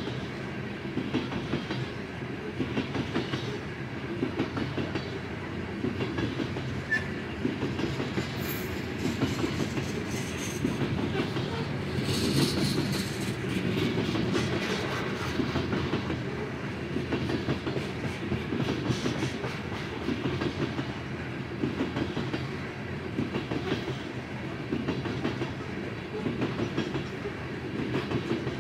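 BNSF coal train's cars rolling past a level crossing: a steady rumble with the clickety-clack of wheels over the rail joints, in uneven pulses every second or two.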